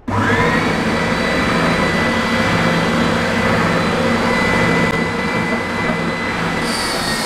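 Triton TSPST450 oscillating belt and spindle sander switched on: its 450 W motor starts at once and spins up within half a second to a steady high whine over a dense running noise. Near the end a wooden block pressed against the moving sanding belt adds a hissing scrape.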